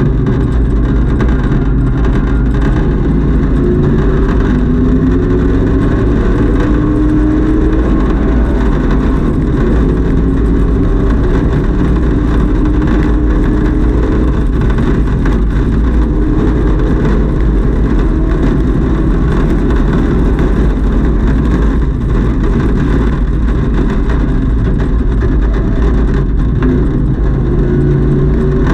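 Camaro race car's engine and exhaust heard from inside the stripped, caged cabin at full throttle. The pitch climbs in several rising steps as it accelerates through the gears to nearly 100 mph, then eases off and picks up again near the end. A heavy low rumble runs under it.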